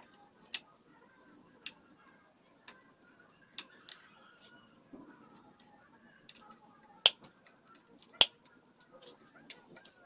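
Scattered sharp clicks or knocks, about seven at uneven intervals, the two loudest about seven and eight seconds in, over faint bird chirps.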